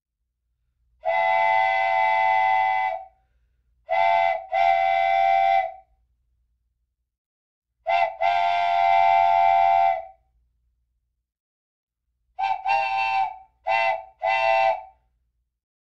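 A multi-tone chime whistle of the kind a steam train blows, sounded in separate steady blasts with silent gaps: one long blast, then two short-then-long pairs, then four quick short blasts near the end.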